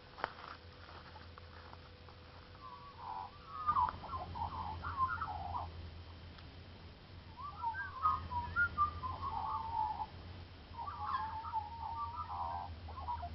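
A bird calling in three bouts of wavering, chattering notes, each a few seconds long, over a steady low hum.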